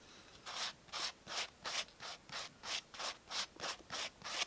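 A wooden spreader rubbing across a slice of crustless white sandwich bread as it spreads mayonnaise, in about a dozen short back-and-forth strokes at roughly three a second.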